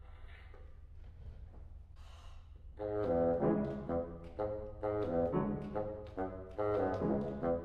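After a short quiet rest, a brass instrument comes in about three seconds in and plays a lively string of short, separated notes in a low-to-middle register.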